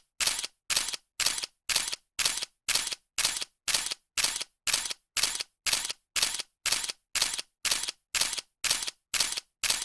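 Camera shutter clicking over and over at an even pace, just under two shots a second, each shot a quick two-part click.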